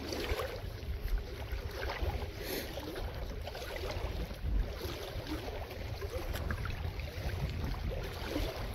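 Steady low rumble of wind buffeting the microphone, with faint scattered ticks and rustles over it.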